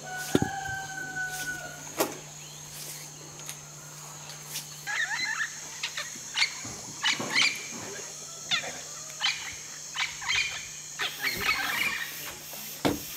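Animal calls: a short call with a slightly falling pitch right at the start, then a run of short, irregular chirping calls from about five seconds in.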